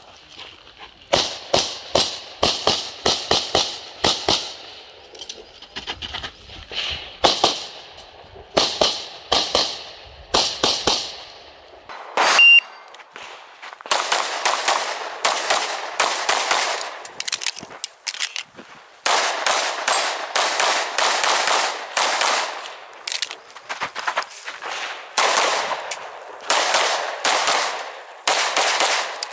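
Handgun fired in rapid strings of shots, with short pauses between strings as the shooter moves between positions, and the reports echoing around the range berms. One report about twelve seconds in is markedly louder than the rest.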